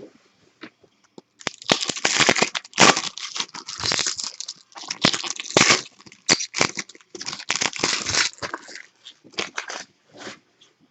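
Baseball card pack wrappers crinkling and tearing as packs are ripped open and handled, in a run of short rustling bursts that starts about a second and a half in.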